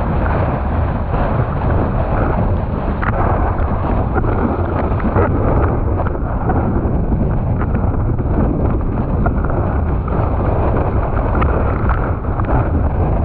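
Storm wind buffeting a windsurfing rig's camera microphone, a loud, steady low rumble, with water rushing beneath the board and spray hitting, heard as faint crackles.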